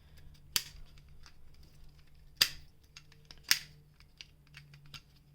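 Small toys and their packaging being handled: three sharp clicks, about half a second, two and a half and three and a half seconds in, among softer scattered ticks and rustles.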